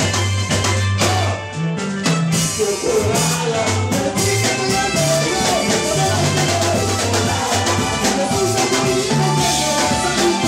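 Live church band playing upbeat Congolese gospel dance music: a drum kit, a moving bass line and a group of women singing together.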